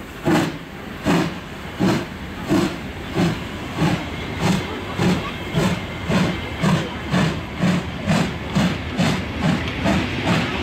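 Hr1 'Ukko-Pekka' two-cylinder Pacific steam locomotive chuffing as it accelerates its train. The exhaust beats quicken from just over one a second to about two and a half a second as it gathers speed.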